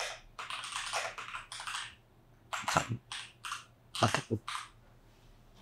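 Typing on a computer keyboard in a few quick runs of keystrokes, stopping about four and a half seconds in.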